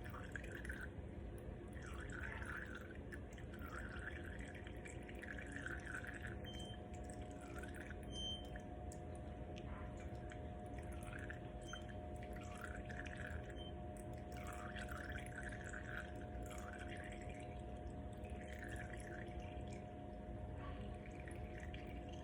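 Used engine oil dripping and trickling from the drain hole into a container, in uneven spurts every second or two, over a steady background hum.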